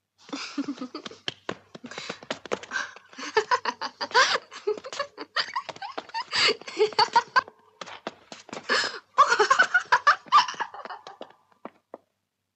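People laughing and giggling in bursts that go on for about eleven seconds, with short breaks for breath, before trailing off near the end.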